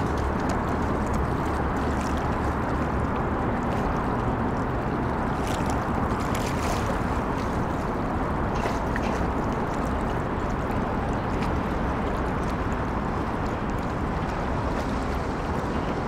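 Steady low rumble and rushing of a river boat under way on open water, with water and wind noise and a few faint clicks.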